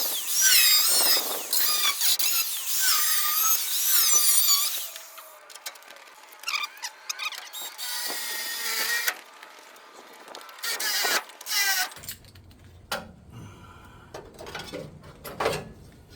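A power tool cutting into a vintage Willys truck's metal door hinge: a loud, screeching squeal that wavers in pitch, running steadily for about five seconds and then coming in short bursts. After about twelve seconds it gives way to light metal clicks and knocks.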